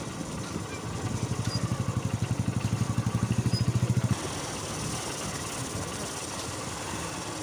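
Motorcycle engine running at low speed with a fast, even putter that grows louder over about three seconds, then drops off suddenly about four seconds in to a quieter, steady run.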